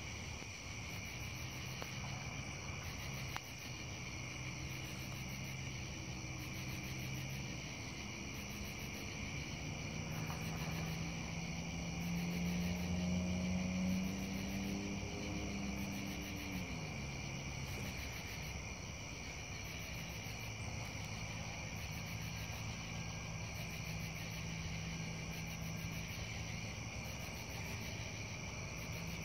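Night insects, crickets and katydids, chirring steadily, with a pulsing high chirp repeating every second or two. Under them runs a low, distant engine hum that swells about halfway through and then drops in pitch.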